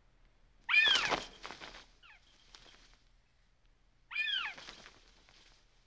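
A hawk gives two loud, harsh cries about three seconds apart, each rising then falling in pitch, with a fainter cry between them.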